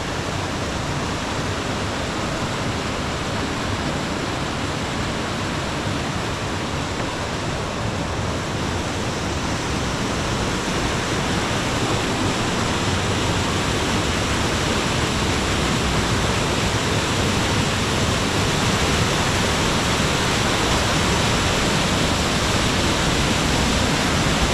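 Steady rush of falling water from a waterfall, growing slightly louder about halfway through.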